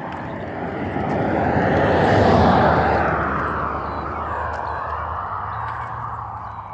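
A vehicle passing on the road: tyre and engine noise swells to a peak about two seconds in, then slowly fades away.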